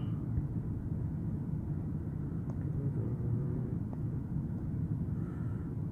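Steady low rumble inside a car, with a few faint clicks from the buttons of a handheld OBD2 scan tool as its data list is scrolled.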